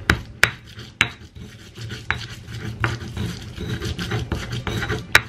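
Stone pestle grinding garlic in a volcanic-stone mortar (Indonesian cobek and ulekan): a gritty scraping and rubbing of stone on stone, broken now and then by a sharp knock of the pestle against the mortar.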